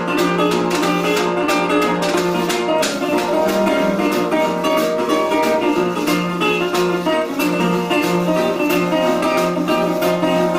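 Instrumental blues played on a fingerpicked resonator guitar, its notes changing through the passage, over a steady rhythm of washboard taps and scrapes, several strokes a second.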